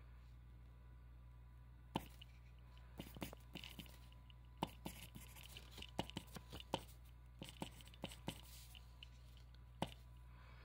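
Writing by hand on paper: scratchy strokes in short spells, with sharp ticks scattered between them, over a faint steady hum.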